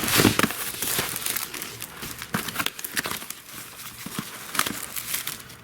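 Packaging being torn open and crinkled by hand: a run of irregular crackles and rustles.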